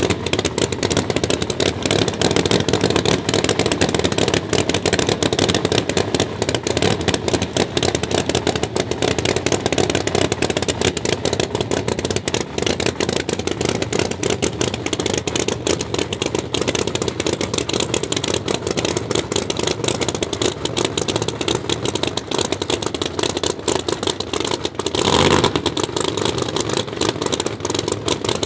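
A drag race car's open-exhaust engine idles loudly, with a fast, choppy pulse. There is one brief louder surge near the end.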